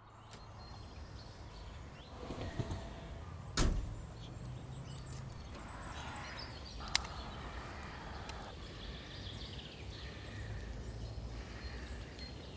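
Quiet handling sounds from an old pickup truck's door over a low steady outdoor background noise: a thud about three and a half seconds in, the loudest sound, and a sharp click about seven seconds in.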